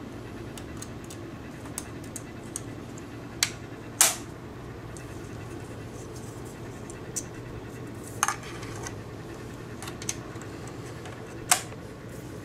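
Sharp, short plastic clicks and taps as parts are fitted into the underside of a PiTop laptop case, the loudest about four seconds in, over a steady low hum.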